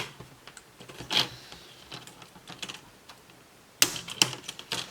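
Plastic clips of a laptop's screen bezel clicking and snapping free as the bezel is pried off the display. A few scattered clicks, then a quick run of sharp snaps near the end.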